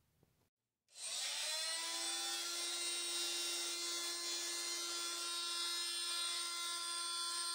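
A corded electric power tool's motor spinning up about a second in, its whine rising briefly and then running at a steady speed.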